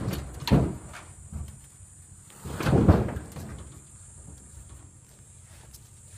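Sheet-metal body of an overturned vehicle banging and crunching as an elephant bull tramples and pushes it. There are a few sharp knocks in the first second, then a longer, louder crunching clatter about two and a half seconds in.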